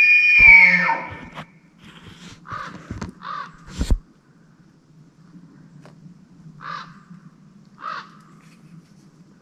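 Elk bugle: a loud, high whistling call that slides down and ends about a second in. It is followed by four short, lower calls spread over the next several seconds, with one sharp thump just before the fourth second.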